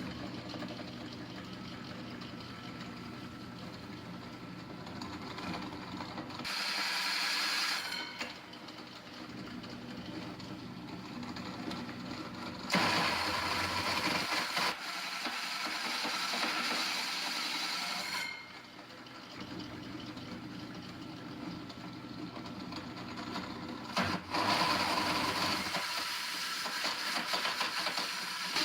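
Drill press motor running steadily, with a hole saw of about 4 1/8 inch cutting into plywood three times. Each cut is a louder noisy stretch lasting a few seconds, the longest about five seconds.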